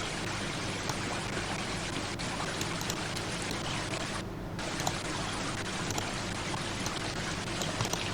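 Steady rushing hiss like running or pouring water, with a brief dip in the hiss about four seconds in and a few faint ticks.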